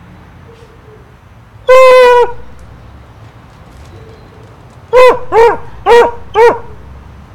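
A dog barking high-pitched: one longer bark about two seconds in, then four short barks in quick succession near the end.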